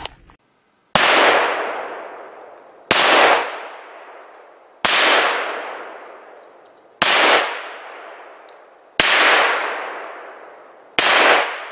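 Six shots from a .22 Magnum single-action revolver, fired about every two seconds, each a sharp crack followed by a long echo that fades through the woods.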